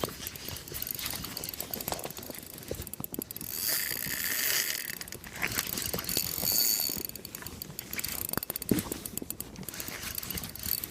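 Fishing reel being cranked, its gears making a rapid ratcheting click. A hiss swells in the middle.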